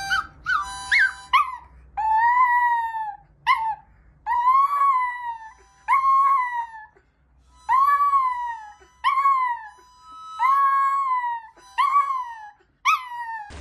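A dog howling over and over in about a dozen drawn-out calls, each rising and then falling in pitch, with a few short steady tones near the start and between the calls.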